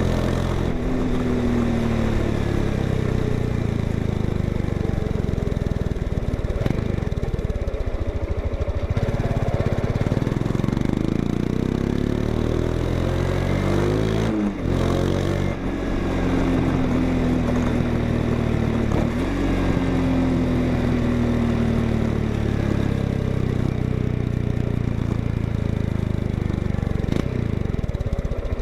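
Honda XRE 190's single-cylinder engine running through its exhaust, its pitch rising and falling repeatedly as it is revved and let back, with a short drop about halfway through.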